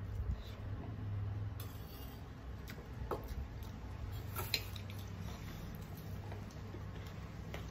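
Mealtime sounds of hand-eating from plates and steel bowls: scattered light clinks and clicks of a spoon and dishes, with soft squishing of rice and curry being mixed by hand, the sharpest click about four and a half seconds in. A low steady hum sits underneath.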